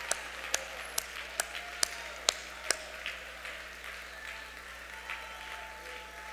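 Congregation applauding in praise, with one pair of hands clapping loudly and evenly about twice a second over the first three seconds; the applause then thins and fades.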